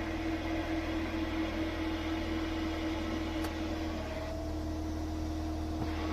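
Mazda RX-8 Spirit R's rotary engine idling with a steady whine from a failed clutch release bearing. About four seconds in, the whine changes pitch and the hiss thins out for a couple of seconds.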